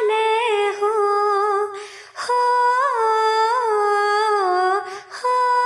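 A woman's voice singing a Hindi devotional bhajan unaccompanied, drawing out a word in long held notes with small ornamental turns and wavers. She breaks briefly for breath about two seconds in and again near the end.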